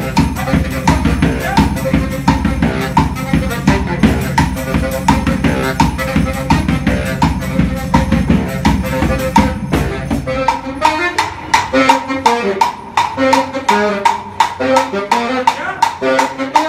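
Live baritone saxophone and drum playing an upbeat groove with a steady beat. The heavy low end drops out about ten seconds in, leaving the sax line over the drum hits.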